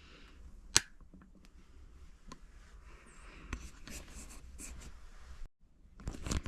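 Close handling and rustling noises, scratchy and intermittent, with one sharp click about a second in and a louder rustle near the end.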